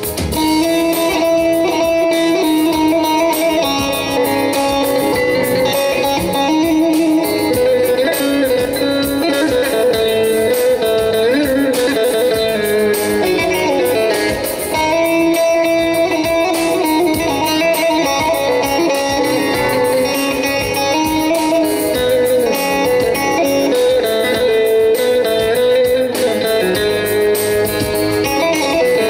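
Instrumental interlude of a Teke-region Turkish folk tune played on a bağlama (long-necked saz), plucked with a plectrum, with no singing.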